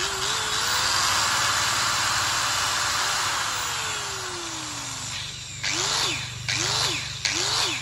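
Makita 9533BLA electric angle grinder (100 V, 9,000 rpm) running at full speed for about three seconds, then winding down in pitch over about two seconds once switched off. It is then blipped on and off three times, each burst rising and falling quickly as the grinder's built-in brake stops the disc.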